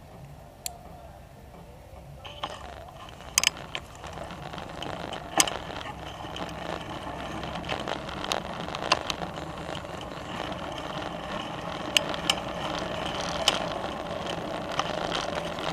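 Bicycle riding on a paved trail, with a steady run of ticking and clicking from the drivetrain and sharp rattles over bumps. Wind and tyre noise starts about two seconds in and grows louder toward the end.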